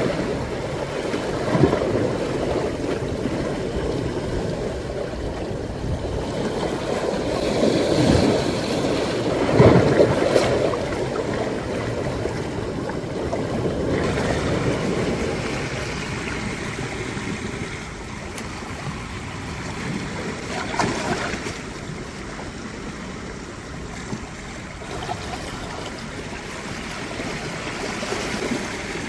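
Sea waves surging and washing over shoreline rocks, with sharper splashes about 2, 8 and 10 seconds in. The wash settles quieter in the second half.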